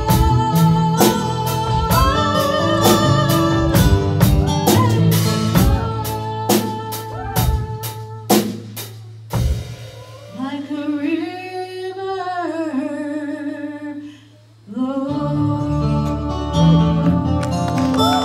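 A woman singing with a live band of electric guitar, bass, drums and keyboard. The drums keep a steady beat, then drop out about nine seconds in while she holds a long note with vibrato over a sustained chord. The full band comes back in near the end.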